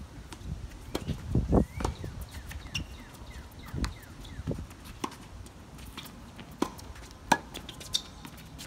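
Tennis rally on a hard court: sharp pops of rackets striking the ball and the ball bouncing, coming every second or two at an uneven pace, with footsteps between. The sharpest strike comes about seven seconds in.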